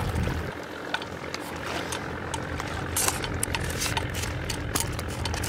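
An engine running with a steady low hum, with scattered sharp clicks and ticks over it.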